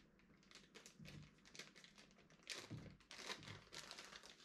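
Faint crinkling of a clear plastic bag being unwrapped from a cordless tool battery: irregular small crackles that grow a little louder past the middle.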